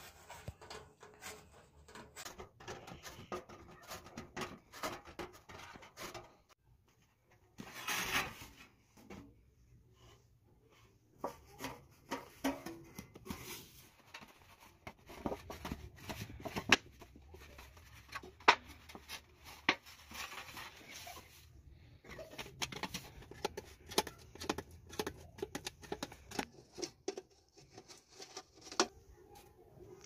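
Thin tinplate from a flattened oil tin being handled: worked at the edge with pliers, then flexed, folded and rolled by hand. It gives irregular sharp clicks and crinkling, with a louder rustling burst about eight seconds in.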